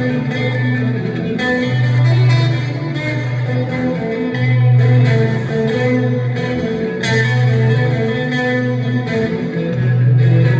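Blues guitar improvisation in B minor: a low riff repeating about every two and a half seconds, played back by a looper pedal, with plucked lead notes over it.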